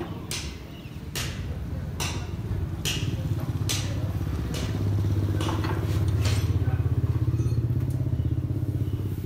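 A motor vehicle engine running with a fast, even pulse; it swells louder in the middle and eases off near the end. Sharp knocks and clicks come every second or so in the first part.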